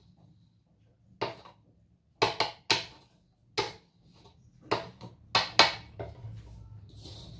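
Metal wok knocking and clanking as it is handled, about eight sharp knocks spread unevenly over several seconds, followed by a faint steady hiss near the end.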